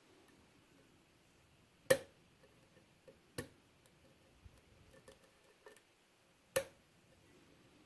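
Sharp metallic clicks and light ticks from a pick and tension wrench working the pin tumblers of a Euro cylinder lock. There are three distinct clicks, the loudest about two seconds in, with fainter ticks between them.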